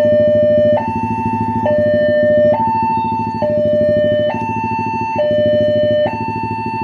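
Railway level-crossing warning siren sounding its two-tone alarm, stepping back and forth between a high and a low note, each held just under a second, to warn of an approaching train. A steady low buzzing rumble runs underneath.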